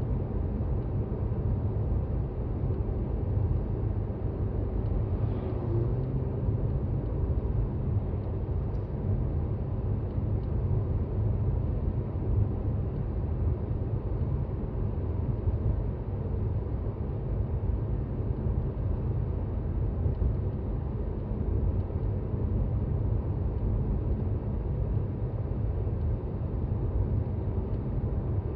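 Steady low road and drivetrain rumble of a Toyota Raize 4WD compact SUV driving on a snowy road, heard from inside the cabin.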